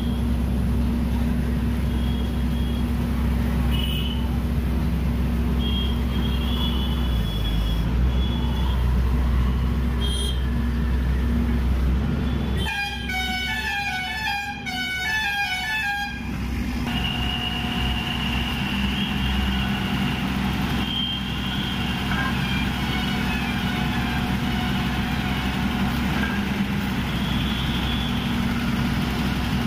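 A heavy engine running steadily, with vehicle horns honking again and again over it. About halfway through, a fast repeating multi-note horn tune plays for about four seconds, followed by long held horn blasts.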